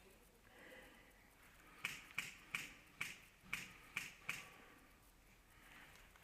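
Airsoft guns firing single shots: seven faint, sharp snaps a third to half a second apart, starting about two seconds in.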